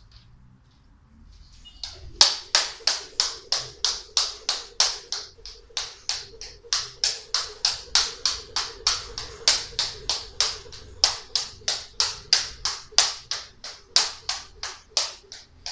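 Beaded jump rope clacking on a wooden floor at each turn, starting about two seconds in and keeping an even rhythm of about three sharp clicks a second.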